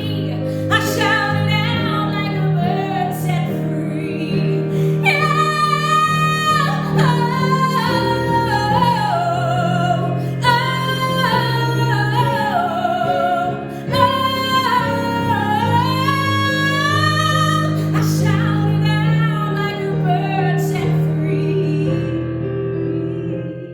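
Pop song with a woman singing a melody with vibrato over sustained keyboard chords; it fades out at the end.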